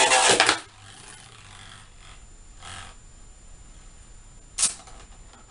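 Beyblade Burst spinning top rattling and scraping on the plastic stadium floor for about half a second as it wobbles to a stop. About four and a half seconds in there is a single sharp plastic click as the top is picked up.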